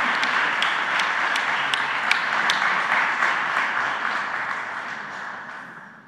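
Audience applauding, a dense patter of many hands clapping that fades away over the last two seconds.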